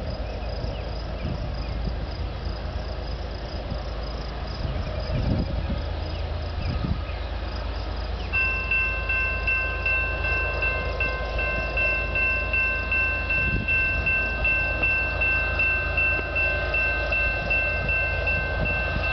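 Railroad grade-crossing warning bell starts ringing about eight seconds in, an even repeated ding of about two strikes a second as the crossing signals activate for an approaching train. Under it there is a steady low rumble.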